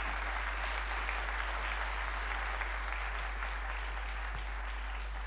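Audience applauding: steady clapping from a large hall crowd that dies down near the end.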